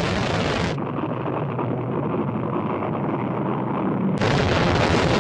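A rocket launching: a steady, noisy roar of rocket engines. The roar is duller, with its highs cut off, from about a second in until about four seconds in, when the full roar returns.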